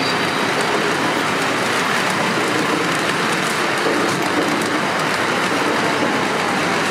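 Model freight train rolling steadily along its track, a continuous whir of small wheels on rail and the locomotive's motor.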